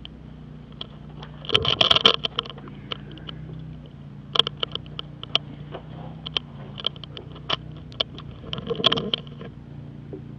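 Scraping, clicks and knocks from someone clambering into a concrete outlet conduit with a handheld camera, loudest about two seconds in and again near nine seconds, over a steady low machine hum.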